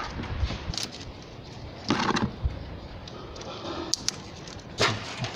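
Split corrugated plastic wire loom being handled and pressed over engine wiring: soft rustling and a few sharp clicks, with two louder scrapes about two seconds and five seconds in.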